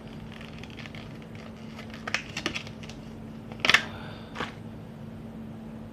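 Plastic packaging handled and crinkled: a few quick clicks about two seconds in, then a louder crackling burst a little past halfway and a single click shortly after.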